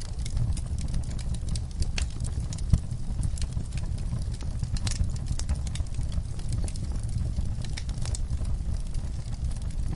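Wood fire burning in a fireplace: a steady low rumble of flames with frequent irregular crackles and pops from the logs, one louder pop about three seconds in.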